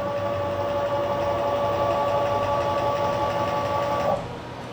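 Stepper motor on a CNC-converted PM-727M mill jogging the table along its axis at a steady speed. It gives a steady whine of several pitches that stops abruptly about four seconds in.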